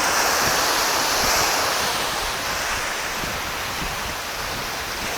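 Sea waves breaking on a beach: the rush of surf swells in the first second or so, then slowly eases as the water washes back.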